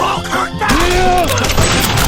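Music with a short gliding vocal cry, then from under a second in a loud, dense run of crashing, clattering hits layered over it.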